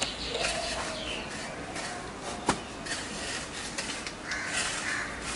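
Gritty scraping of a damp sand-and-cement mortar bed being smoothed and levelled by hand with a small flat block, with one sharp knock about two and a half seconds in.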